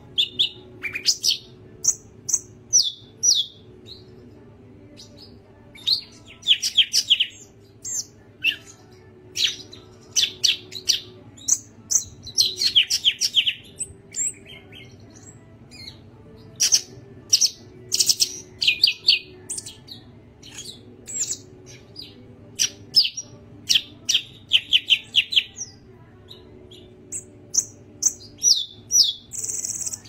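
Golden-fronted leafbird (cucak ijo kepala kuning) singing: quick runs of high, sharp chirps and whistled notes, some sliding down in pitch, coming every second or two, over a faint low hum.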